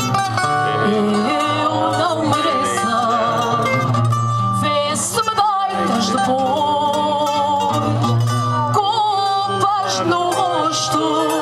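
Live fado: a Portuguese guitar and a viola de fado playing, with a woman's singing voice over the plucked strings.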